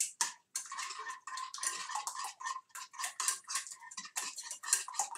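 A utensil scraping and clinking rapidly against a frying pan, about three or four strokes a second, as eggs are beaten and scrambled in the pan.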